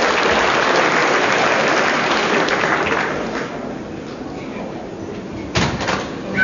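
Audience applause from a large crowd, dying away about three seconds in to a low murmur. A single sharp knock near the end.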